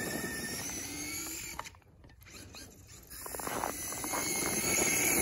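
Traxxas E-Revo 2.0 RC truck's electric motor and drivetrain whining as it drives across snow. The whine rises early, drops away for about a second, then builds again as the throttle comes back on.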